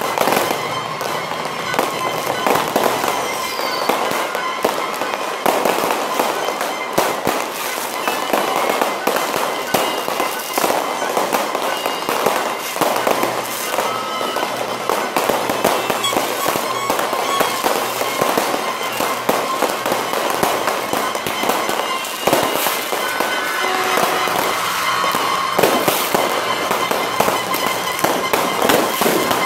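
A fireworks display: shells bursting in rapid, overlapping bangs mixed with crackling, with no lull between them.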